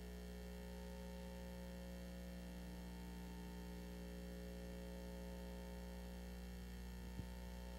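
Steady low electrical mains hum with a few fixed tones over faint hiss, with one faint click near the end.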